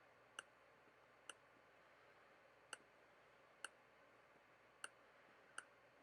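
Lego pieces clicking as a brick-built model is handled and its joints repositioned: six short, sharp clicks at irregular intervals over a faint hiss.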